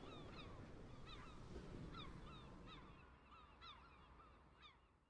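Faint flock of birds calling: many short, falling calls overlap several times a second over a low rumble. Everything fades out near the end.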